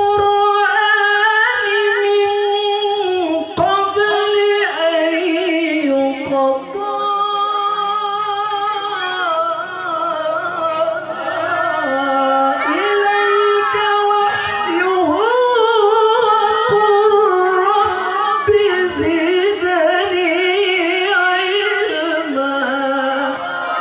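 A male qari reciting the Qur'an in the melodic, ornamented tilawah style into a microphone, drawing out long held notes in a high register with wavering runs between them.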